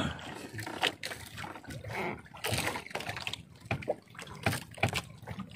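Water splashing and dripping as a wet gill net is hauled and handled over the side of a small boat, with irregular splatters and light knocks.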